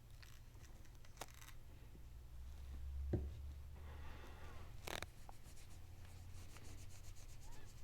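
Faint handling noises of a small pocket knife turned over in the hands: a few light clicks and some rubbing, with a soft thump about three seconds in, over a low steady hum.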